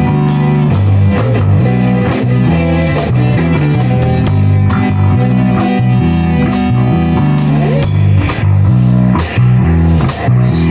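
Rock band playing an instrumental passage with no vocals: guitars and bass over a drum kit keeping a steady beat. A note slides in pitch about seven seconds in.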